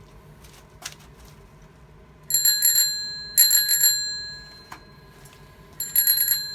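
Bicycle bell rung in two pairs of quick trills a few seconds apart, each a fast run of strikes with a bright ringing tone that fades away after it. A small click sounds about a second in.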